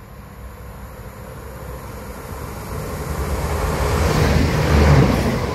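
TurboStar diesel multiple unit approaching and running past along the platform. Its low rumble and the rush of its passing build steadily to a peak about five seconds in.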